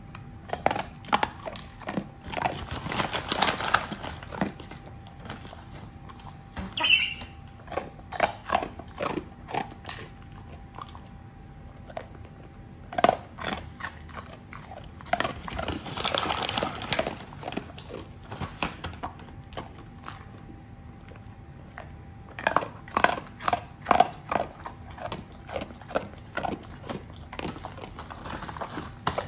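Golden retriever making irregular clicking and snuffling noises in clusters a few seconds apart, with quieter pauses between.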